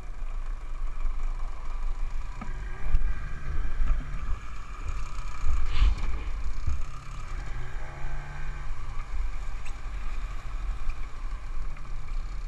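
Motorised inflatable boat under way in choppy sea: a steady engine hum, water splashing and rushing along the hull, and wind rumbling on the microphone, with a few knocks from gear in the boat.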